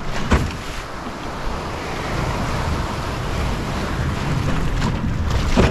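Surf breaking and washing around, with wind buffeting the microphone; two short sharp knocks or splashes, one just after the start and one near the end.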